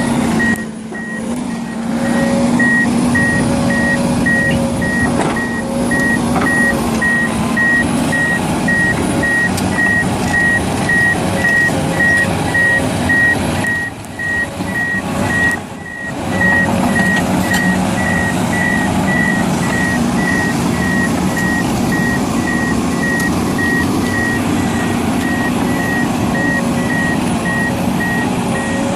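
A heavy construction machine's backup alarm beeps at an even pace over its diesel engine running steadily. The engine briefly drops away twice, about halfway through.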